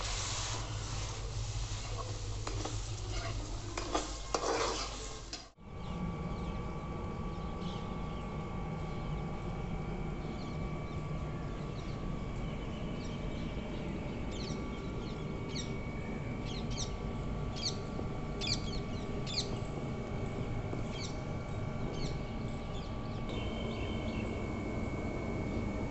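A metal spoon stirring and scraping a spiced masala frying in oil in an aluminium kadhai. About five seconds in the sound cuts off abruptly and gives way to a steady hum with short high chirps that come and go.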